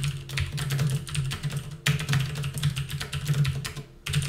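Typing on a computer keyboard: quick runs of keystrokes, with a short pause near the end.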